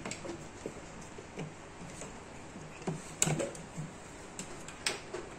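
Light clicks and taps of wires and plastic connectors being handled and plugged together on a table, with a sharper click about three seconds in and another near the end.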